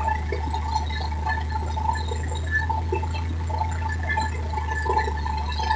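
Water gushing and splashing out of a freshly drilled borewell, over a steady low machine hum.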